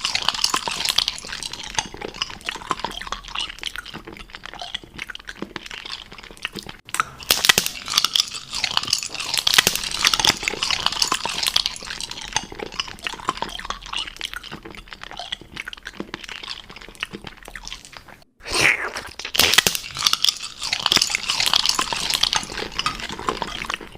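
A person chewing something crunchy close to the microphone: dense, continuous crackling bites and crunches, with two brief breaks about a third and three-quarters of the way through.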